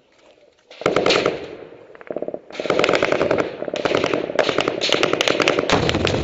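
Automatic gunfire in a firefight: rapid, overlapping shots that start about a second in after a brief near-quiet moment, ease off briefly, then run on almost without a break from about halfway through.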